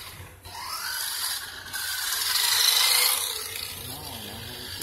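Electric RC truck driving on a concrete floor: a motor whine that rises in pitch about half a second in, with tyres scrubbing over the concrete, loudest around the middle.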